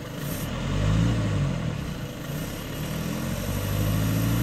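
VW Golf 7 GTD's 2.0-litre four-cylinder TDI diesel engine revved twice, its pitch rising each time, with the active sound actuators switched off: hardly any exhaust sound, just the diesel's own engine noise from the front.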